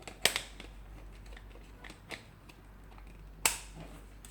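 Plastic clicks and handling knocks from the video borescope's detachable monitor being handled and fitted: two sharp clicks, one just after the start and one about three and a half seconds in, with a few fainter ticks between.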